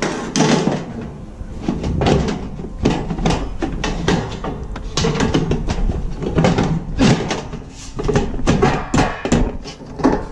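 Music playing, with repeated knocks and rattles of corrugated metal hurricane shutter panels being pushed and handled into place.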